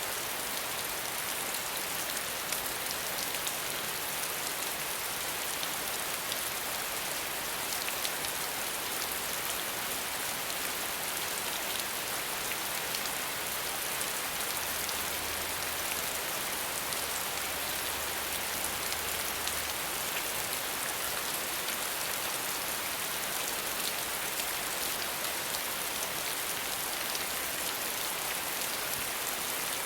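Steady rain with no thunder: a dense, even hiss with fine patter of individual drops.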